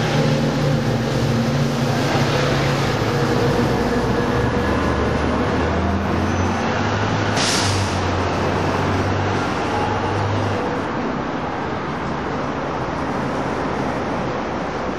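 Diesel locomotive of a Coaster commuter train running as the train passes on the curve, its low engine drone dying away about ten seconds in. A brief hiss comes about seven seconds in, over a steady wash of freeway traffic noise.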